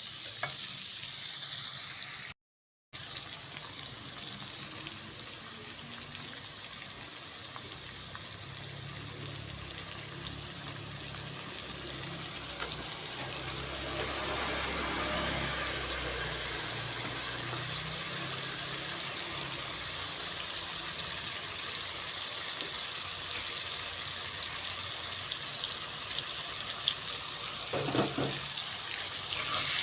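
Tofu and green chillies sizzling in a pan as a steady hiss. The sound cuts out briefly about two and a half seconds in.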